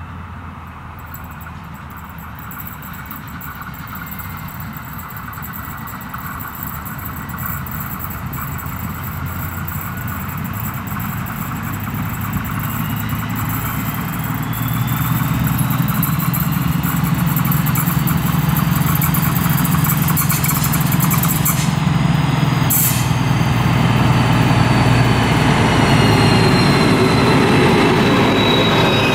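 DB class 218 diesel-hydraulic locomotive's V12 diesel engine working as it hauls an Intercity train toward the listener, its drone growing steadily louder and deepening as it draws close near the end. A high thin squeal slowly rises and then falls in pitch over it.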